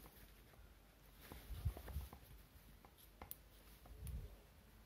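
Faint clicks and light knocks of a multimeter test probe and a mains power cable being handled, as the probe tip is placed on the plug's pins for a continuity check.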